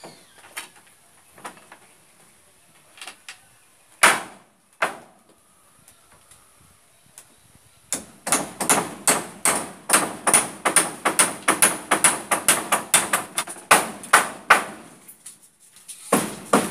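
Hammer striking wood in carpentry work: two separate blows, then a fast run of strikes at about four a second lasting several seconds, and a few more near the end.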